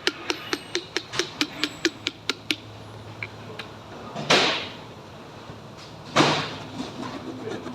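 Factory machinery: rapid mechanical clicking at about four a second that fades out after a couple of seconds, followed by two short bursts of hissing, one about four seconds in and one about six seconds in.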